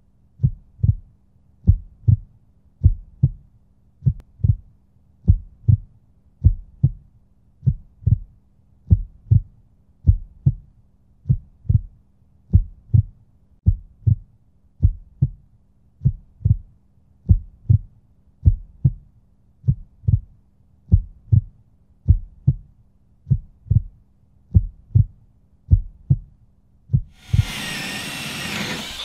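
Heartbeat sound effect: low, steady thumps repeating at an even pace. About a second before the end, a loud hissing workshop noise cuts in.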